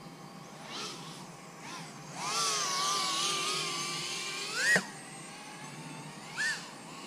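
Brushless motors and propellers of a small FPV quadcopter, ducted on one side only, whining as the throttle is worked. There are two short bursts, then a held whine of about two and a half seconds that rises sharply and cuts off, then one more short burst near the end.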